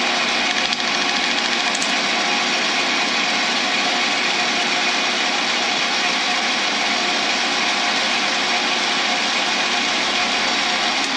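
Lathe motor running steadily at speed, spinning the blank: an even, constant machine hum with a faint whine and no change in speed.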